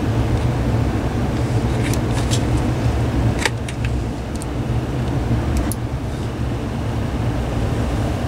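Steady low hum with scattered light metallic clicks from handling wire strippers while a wire is re-stripped.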